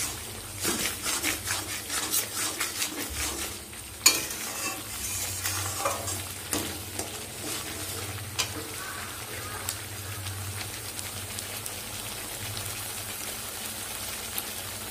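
Spice paste sizzling in oil in a kadai while a flat spatula scrapes and taps against the pan, in quick strokes for about the first seven seconds with one louder knock about four seconds in, then steady sizzling. The masala is nearly fried down.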